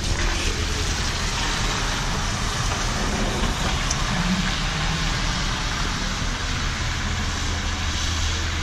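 Steady noise of a 2016 Nova Bus LFSe battery-electric bus: an even hiss over a low hum, with no engine note.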